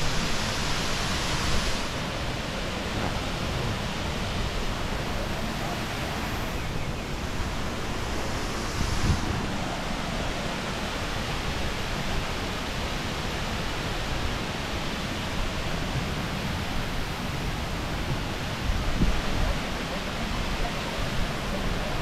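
Steady rushing noise of a waterfall. A few low bumps come about three-quarters of the way through.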